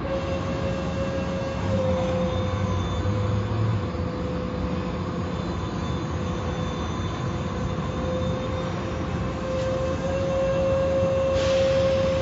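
Automatic car wash machinery running: a steady rushing noise with a constant mid-pitched hum, and a lower hum for a couple of seconds about two seconds in.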